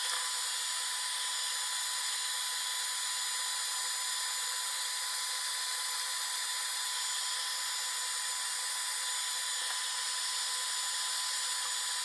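Hot-air blower running steadily, a constant airy hiss with a faint thin whine, heating the phone's glass to soften the adhesive underneath.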